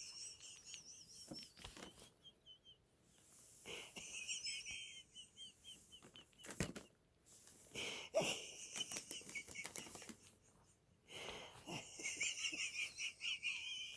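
Empty cheese-straw snack bag making a high, fluttering wheeze. It comes in about four bouts of two to three seconds each, with short quiet gaps between them.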